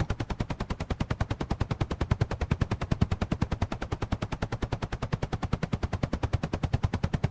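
Helicopter rotor blades chopping at a steady rate of about eleven beats a second, with no engine sound.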